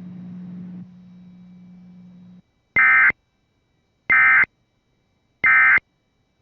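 Emergency Alert System end-of-message code: three short, identical bursts of data tones, a little over a second apart, signalling the end of the alert broadcast. Before them a faint low hum runs and cuts off about two and a half seconds in.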